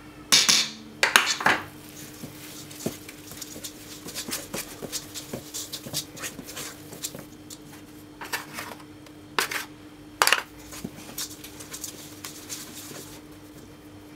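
Kitchen utensils scraping and clinking against a stainless steel mixing bowl as flour is stirred into a soft dough. The loudest clanks come about half a second in, around a second and a half, and twice near ten seconds.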